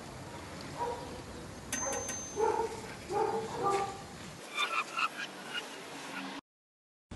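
Faint outdoor background with a few sharp clicks about two seconds in and scattered short, distant calls, then the sound cuts out completely about a second before the end.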